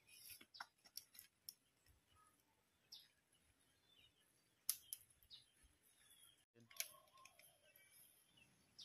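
Near silence broken by scattered faint clicks and snaps as leafy moringa branches are pulled down and a pod is picked, with a few faint bird chirps.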